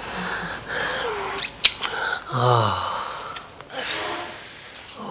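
A person moaning and breathing heavily while kissing: a few sharp smacks early on, a low moan falling in pitch about halfway through, and a long breathy exhale near the end.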